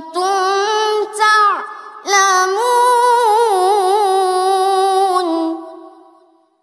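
A boy reciting the Quran in the melodic tajweed style, his high voice holding one long, ornamented note that wavers quickly up and down. The note ends about five seconds in and dies away in the reverb.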